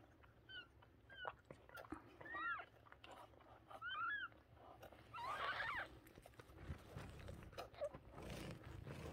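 Newborn kittens mewing: a few short, high squeaks that rise and fall, with a louder, rougher cry about five and a half seconds in.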